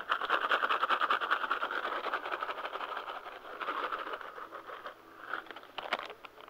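Close, fast scratchy rustling from a hand working near the carpet at the bed's edge, loudest at first and fading away over about five seconds, followed by a couple of sharp clicks near the end.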